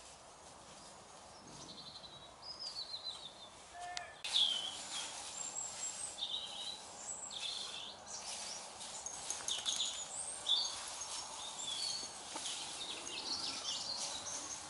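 Small birds chirping and calling, with scattered rustling and crackling of dry fallen leaves as dogs move through them.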